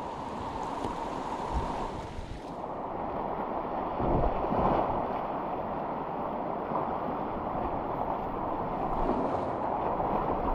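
Rushing whitewater of a river rapid close around a kayak: a steady, dense wash of churning water with a few low thumps, the loudest about four seconds in. The upper hiss drops away about two and a half seconds in.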